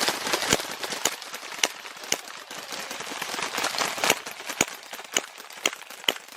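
Several airsoft guns firing single semi-automatic shots, sharp cracks coming irregularly about every half second over a steady rustling haze.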